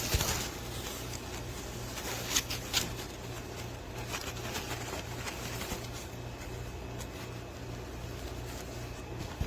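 Light handling noise: a few soft clicks and rustles, mostly in the first three seconds, over a steady low hum.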